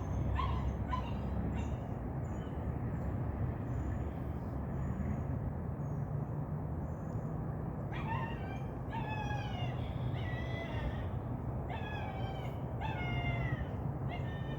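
Puppy whining and yelping: short, high-pitched cries that fall in pitch, a few near the start and then repeated in quick clusters over the last several seconds. A steady low hum runs underneath.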